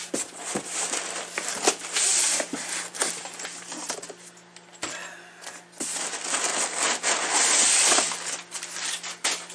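Cardboard boxes being handled: two long stretches of scraping and rustling, about two seconds in and again from about six to eight seconds in, with scattered light knocks and taps.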